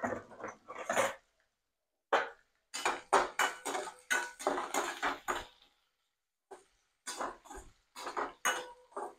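Perforated steel spatula scraping and clinking against a stainless steel kadai while stir-frying onions and green chillies in oil, in several bursts of stirring with short pauses between.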